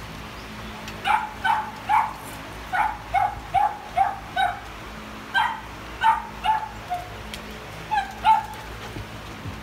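A dog giving short, high yips in quick runs of two to five, about two a second, with brief pauses between the runs.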